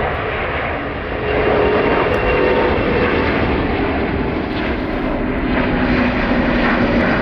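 Airbus A350-900's Rolls-Royce Trent XWB turbofans at takeoff thrust as the airliner climbs out: a loud, steady jet rumble with a faint low hum in it, growing louder about a second in.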